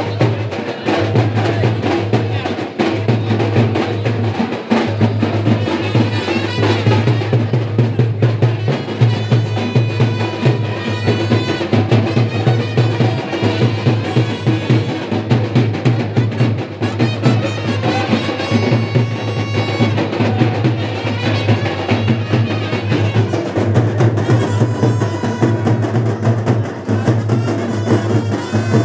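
Loud, fast drumming in a steady driving rhythm, with a high-pitched melody line playing over it from about six seconds in.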